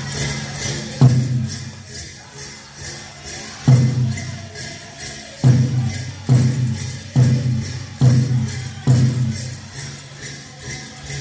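Powwow big drum playing a grass dance song, with seven loud accented hard beats from about a second in, most about a second apart, each with a low ringing boom. Under them run a steady drumbeat and the jingle of dancers' bells.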